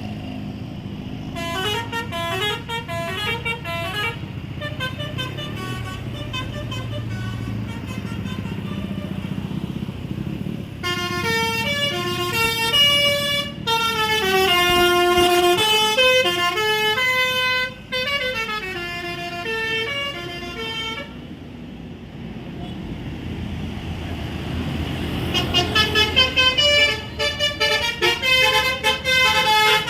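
Bus's 'telolet' multi-tone musical air horn (basuri horn) playing tunes, its notes stepping up and down: a short phrase in the first few seconds, a long melody through the middle, and another from a few seconds before the end. A low steady rumble runs underneath.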